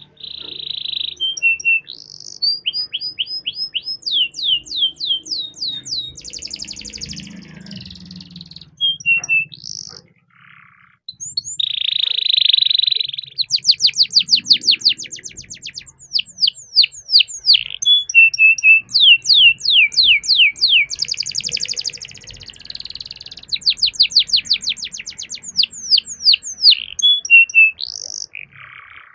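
Domestic canary singing a long, loud song made of buzzy rolls and rapid trills of repeated sweeping notes, with a short pause about ten seconds in.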